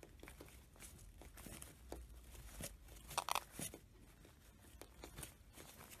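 Faint scattered clicks, taps and rustles from small parrots moving on a windowsill, with a short squeak a little over three seconds in.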